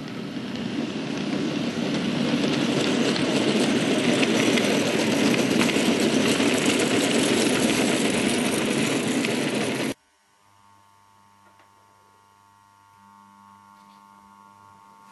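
Model train of tank wagons rolling past close by: a loud, steady rumble and rattle of small wheels on track that swells over the first few seconds. About ten seconds in it cuts off abruptly, leaving a faint low motor hum.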